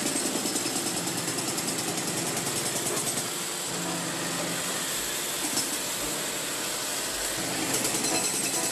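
Construction-site machinery running: a steady engine noise with a fast, regular pulse in the first few seconds.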